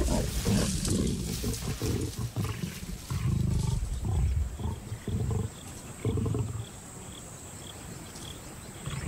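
Lions growling and snarling in a string of short, deep bouts at a kill, as a male asserts himself over lionesses at a carcass. The bouts die down about two-thirds of the way through.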